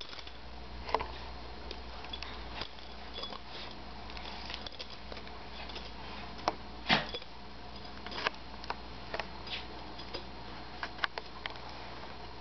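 Two small dogs play-wrestling: irregular scuffles, clicks and light knocks of paws and bodies on carpet and a blanket, the loudest knock about seven seconds in, over a steady low hum.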